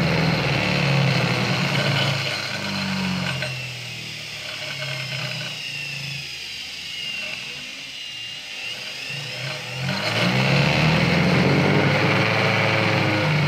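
A powerful universal motor running on an SCR phase-control speed controller. It runs fast, is turned down for several seconds so that its whine falls and it quietens, then is sped back up about ten seconds in.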